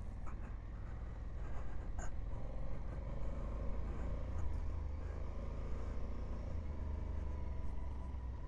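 Honda Africa Twin motorcycle engine running at low, steady road speed, picked up by the bike's onboard camera with a deep continuous rumble. A brief click sounds about two seconds in.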